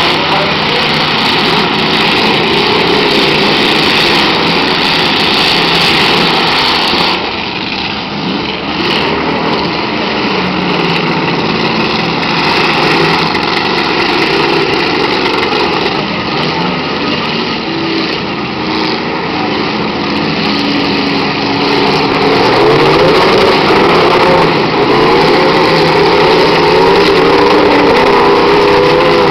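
Several demolition derby cars' engines running together, revving up and down as the cars drive and push at each other on a dirt track. The revving rises near the end.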